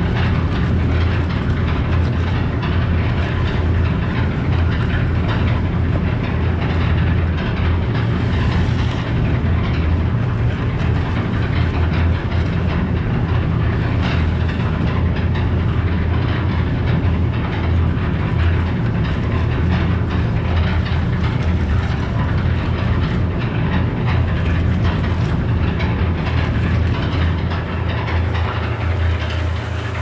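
Portable cement mixer running steadily, its motor humming low as the drum turns.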